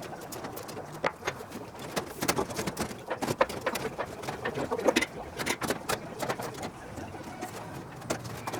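Irregular clicks, taps and scrapes of hand work on aluminium aircraft parts, like sanding and deburring rivet holes.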